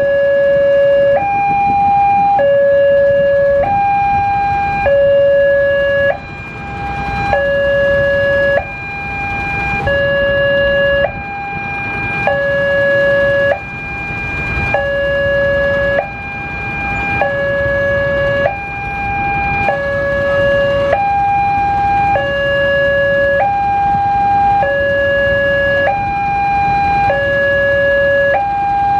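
Electronic warning sounder of a railway level crossing, alternating steadily between a higher and a lower tone, each held for about a second. The crossing's warning of an approaching train, sounding while the red lamps flash.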